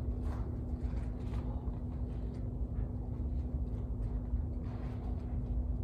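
Steady low rumble with a constant low hum, and faint soft rustles over it.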